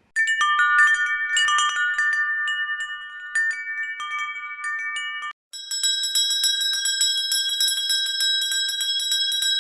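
Wind chimes tinkling, many bright metal tones struck irregularly and left ringing over one another. After a brief break, a second, higher-pitched ringing follows, struck in a rapid, steady flurry.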